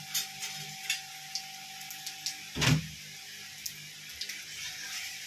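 Nigella, cumin seeds and dried red chillies sizzling and crackling in hot mustard oil in a kadai, a steady hiss full of small pops. A single thump about two and a half seconds in.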